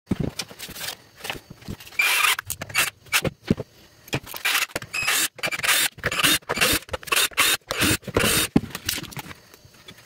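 Irregular bursts of scraping and clattering as a plastic fan-heater casing is handled and taken apart.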